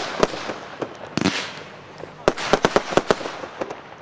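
Aerial firework shells bursting in a display: a sharp bang just after the start, a longer rushing burst about a second in, then a quick run of bangs between two and three seconds in.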